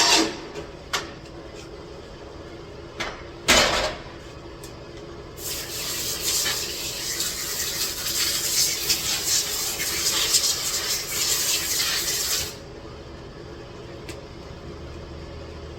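A few sharp knocks, then a steady hiss lasting about seven seconds that cuts off suddenly.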